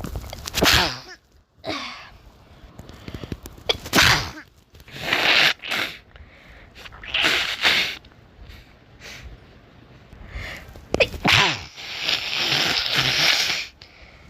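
A person sneezing about five times in short, sharp bursts spread over several seconds, then a longer, steady blow of the nose near the end.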